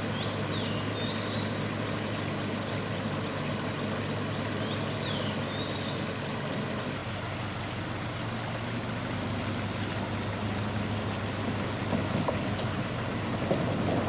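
Toyota HiAce van's engine running steadily at low speed as it edges through a shallow stream, over the rush of the stream's water. A few short bird chirps are heard near the start and again a few seconds in.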